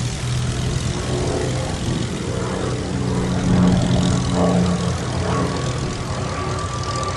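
Rolls-Royce Merlin V12 of a Hispano Buchon on a low pass, the propeller-engine drone swelling to its loudest about three and a half seconds in and easing off after. A thin steady whine joins it after about five seconds.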